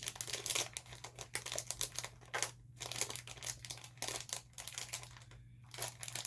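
Plastic snack bag crinkling in irregular bursts as it is handled and opened, over a faint steady hum.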